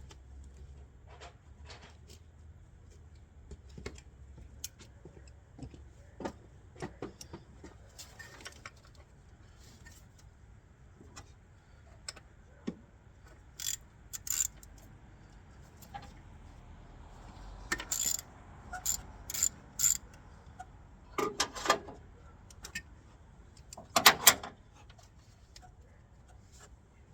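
Metal hand tools clinking and clicking irregularly as sockets are handled and tried, with a few sharper metallic clanks in clusters about halfway through and near the end.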